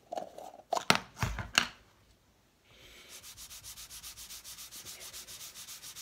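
A few clicks and knocks as a tin of leather conditioner is handled. Then, from about three seconds in, a fleece applicator pad is rubbed quickly back and forth over a piece of leather, about five strokes a second, working in Fiebing's Aussie leather conditioner.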